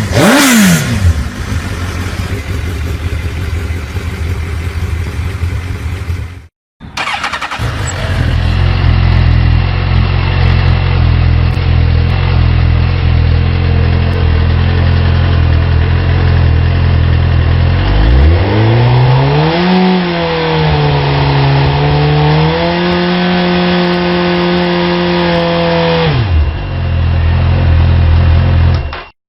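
Suzuki GSX-R sportbike inline-four engines on stock exhausts, idling and being revved. Near the start a quick rev falls back to idle; after a cut another bike idles, is revved up about eighteen seconds in, held at raised revs for several seconds, then drops back to idle.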